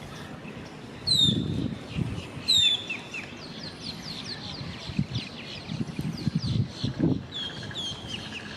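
Wetland birds calling: two loud, sharp calls sliding down in pitch in the first few seconds, then a rapid series of short, high, descending chirps.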